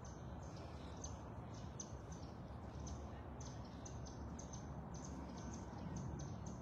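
Small birds chirping: short high chirps, a few a second, over a steady low background rumble.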